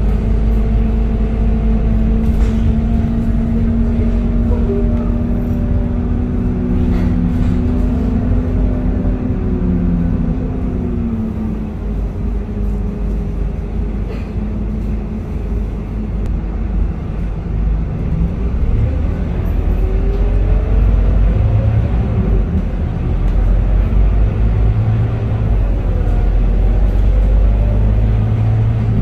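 Scania K230UB city bus heard from inside the passenger cabin: the diesel engine and drivetrain running under a steady low rumble as the bus drives. The engine note falls and eases off around ten seconds in as the bus slows, then climbs again around twenty seconds in as it pulls away.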